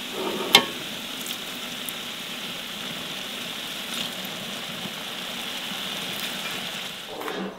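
Food sizzling steadily in hot fat in a cooking pan, with a few light clicks of a utensil; the sizzle cuts off suddenly near the end.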